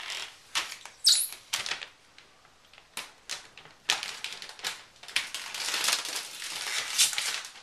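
Thin clear plastic protective film peeled off an iMac's screen and crinkled in the hands: irregular crackling and rustling, with a longer, denser rustle about five to seven seconds in.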